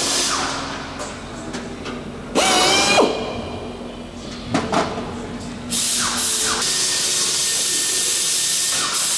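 A handheld power tool used in aircraft skin riveting, whirring in short bursts, a longer one about two and a half seconds in and a brief one near five seconds. From about six seconds in, a steady hiss takes over.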